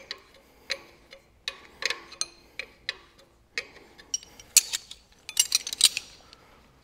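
Spanner and steel fittings clicking and clinking as an oil-gauge pipe fitting on an old engine is undone and handled: a string of separate metallic clicks at uneven spacing, coming quicker and louder about two-thirds of the way in.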